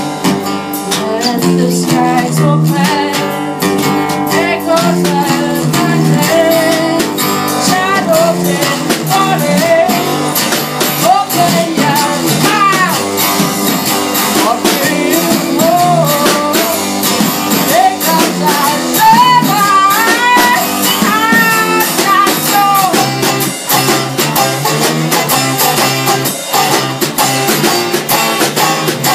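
A band playing a song, guitars to the fore, with a lead melody that bends and wavers in pitch above the steady chords, recorded through an iPhone's microphone.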